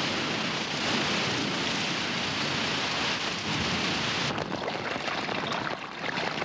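Heavy downpour falling steadily during a thunderstorm. About four seconds in the sound changes abruptly to a grainier, crackling spatter of rain splashing on a flooded street.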